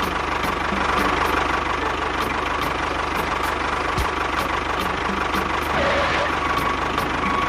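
Small engine of a miniature DIY construction vehicle running steadily with a fast, even ticking, with a faint thump about four seconds in.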